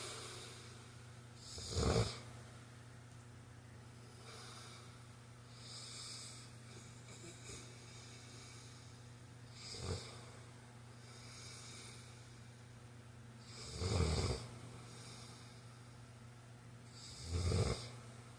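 A man snoring in his sleep: four loud snores at uneven intervals, with quieter breaths between them, over a steady low hum.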